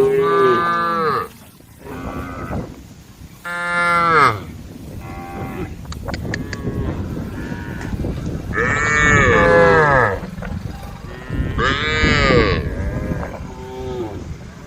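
Several cows mooing one after another and over one another, in long calls that rise and fall in pitch, some deeper and some higher.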